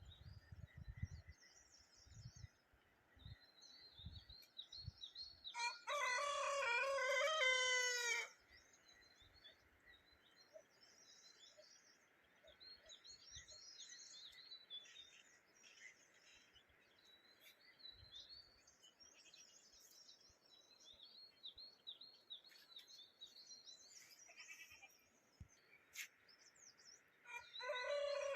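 A rooster crowing, a long call of about two seconds around six seconds in and another starting near the end, over small songbirds chirping and twittering throughout.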